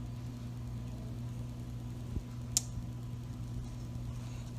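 Steady low electrical hum. About two seconds in there is a soft knock, and half a second later a single sharp click.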